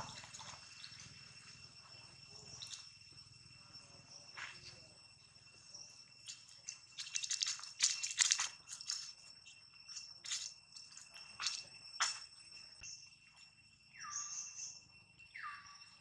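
A steady, high-pitched insect chorus drones throughout. Over it come bursts of crackling rustles of dry leaves and twigs, thickest in the middle, as monkeys scramble over the leaf litter. Near the end there are two short squeaks that fall sharply in pitch.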